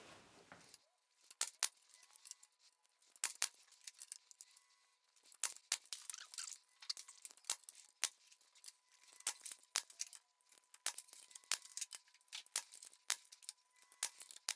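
Faint, irregular sharp clicks and knocks of wooden battens being handled and fixed to a wall, some in quick clusters, with a faint steady tone beneath.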